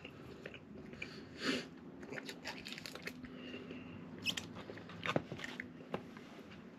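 Quiet close-up mouth sounds of a person chewing fast food: soft wet smacks and a few sharper clicks spread through.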